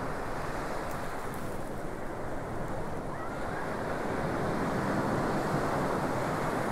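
Steady wash of surf on a sandy beach mixed with wind buffeting the microphone, growing a little louder about halfway through.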